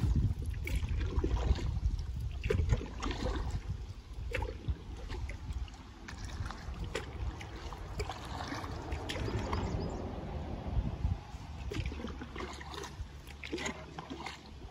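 River water lapping and trickling against a kayak's hull as it drifts downstream, with scattered drips and small splashes. A low rumble is strongest in the first few seconds and then eases.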